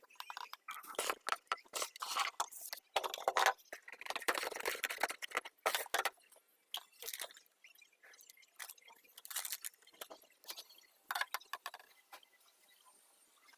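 Plastic packaging and parts being handled: irregular crinkling, rustling and sharp clicks, busiest in the first half and then sparser, with another short cluster about ten seconds in.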